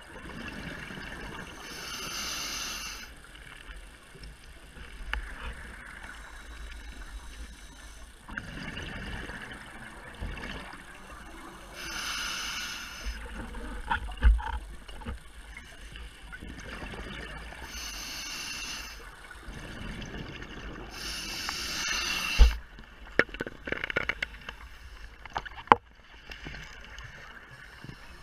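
Scuba diver breathing underwater through a regulator: exhaled bubbles rush out in bursts every few seconds over a low water rumble. A few sharp knocks and clicks come in the second half.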